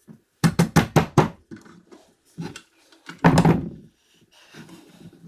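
Knocks and clunks of drill press parts being handled and fitted together: a quick run of about five knocks, a single knock, then a heavier thump a little past three seconds in.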